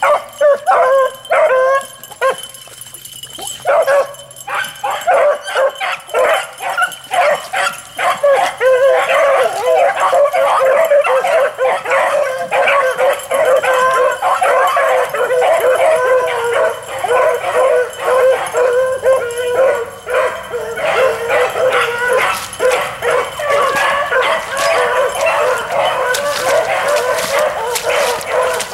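A pack of beagles baying on a rabbit's trail. A few scattered barks at first, then from about eight seconds in the whole pack opens up in a continuous, overlapping chorus of howls and yips, the hounds running the rabbit.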